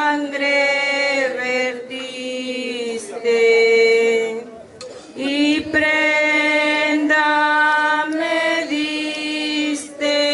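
Slow religious chant sung in long, held notes, with a short break about halfway through.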